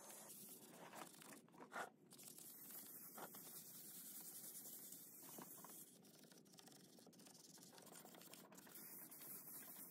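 Faint rubbing and scraping of 220-grit sandpaper scuffing the old satin green paint on wooden chair legs by hand, with a light tap a little under two seconds in.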